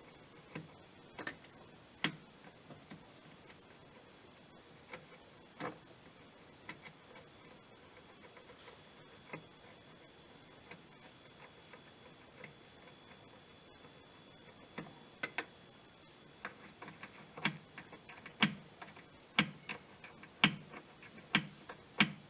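Scattered sharp clicks and taps of hand work on washing machine parts, few at first, then a run of clicks about once a second near the end.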